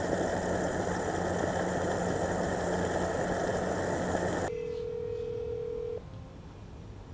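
Steady running noise of a vehicle with a low hum, which cuts off suddenly after about four and a half seconds. A single steady beep follows and lasts about a second and a half.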